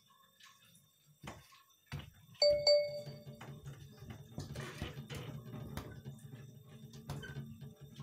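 Two quick electronic chime notes about two and a half seconds in, over a low steady rumble that starts just before them and runs on; a short rustle near the middle.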